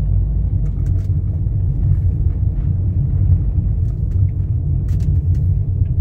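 Car driving on a paved street, heard from inside the cabin: a steady low rumble of engine and tyre noise, with a few faint clicks.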